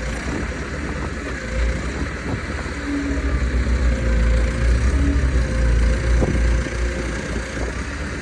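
Tractor engine running steadily, with heavy wind rumbling on the microphone.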